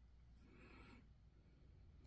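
Near silence: room tone, with one faint, brief noisy sound from about half a second to one second in.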